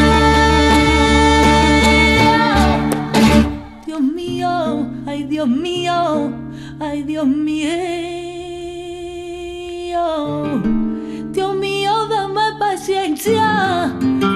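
Live flamenco music: a flamenco guitar played with a cante singer's voice. A loud, full passage breaks off about three and a half seconds in, then the guitar continues more softly with picked notes under a long held, wavering sung note before the playing builds again near the end.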